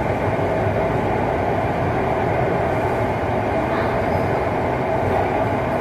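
Steady running noise inside a moving BEML-built metro train cruising along: wheels on rail and drive hum, with no stops or announcements.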